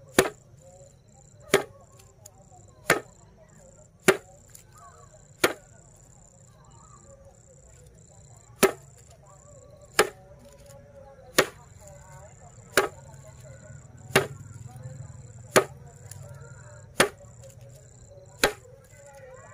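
A bundle of dried grass stalks whacked down onto a flat board, about one sharp slap every second and a half, thirteen times with one pause of about three seconds near the middle. A steady high insect chirping goes on underneath.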